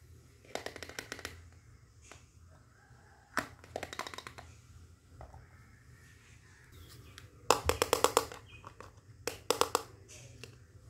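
Small hard-plastic toy kitchen pieces clicking and clattering as they are handled, knocked together and set down, in four short bursts of rapid clicks, the loudest about two-thirds of the way through.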